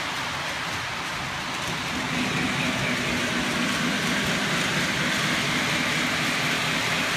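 Model train running along a shelf layout: steady rolling rattle of wheels on track with a motor hum, which gets louder about two seconds in as the lit passenger cars pass close by.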